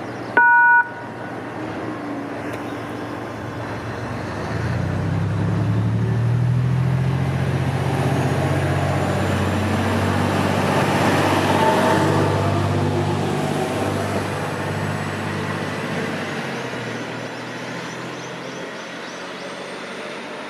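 A short, loud electronic beep about half a second in. From about four seconds in, a heavy vehicle engine approaches and passes, its low drone building for several seconds and then fading away.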